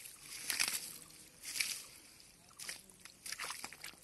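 Hands digging and squelching in wet mud among grass, in several short, irregular bursts of squishing and rustling.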